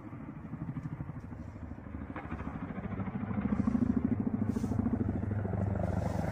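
Attack helicopter flying low, its rotors beating in a fast, even thud that grows louder about three seconds in as it comes closer.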